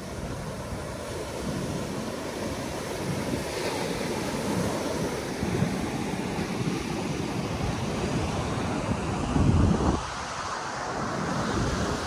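Surf breaking and washing up a sandy beach, with wind buffeting the microphone; the strongest gust comes about nine and a half seconds in.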